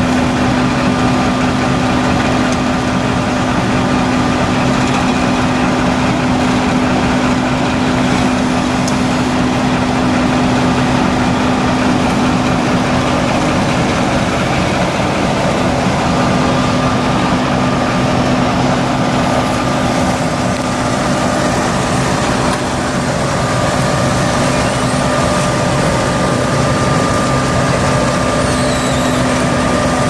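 Heavy diesel machinery running steadily: a Sumitomo HA60C asphalt paver paving, with the dump truck feeding its hopper running alongside. It makes a steady, even drone with a constant hum.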